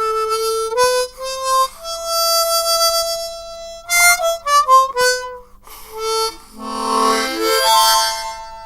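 Harmonica playing a short phrase: held single notes stepping in pitch, a quick run of notes in the middle, then several notes blown together as a chord near the end that fades out.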